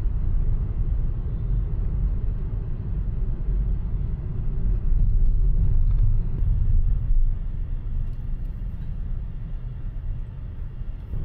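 Steady low rumble of a road vehicle on the move, a little louder about five to seven seconds in.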